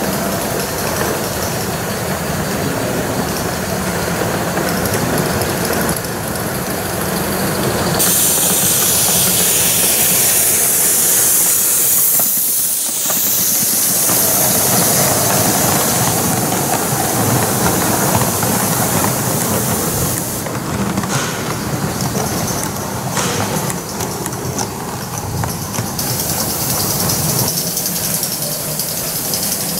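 Two Aster BR 86 live-steam Gauge 1 locomotives running double-headed with a goods train: steady steam hiss with the rumble of the wagons' wheels on the track, the hiss loudest from about a quarter of the way in until two-thirds through, and again near the end.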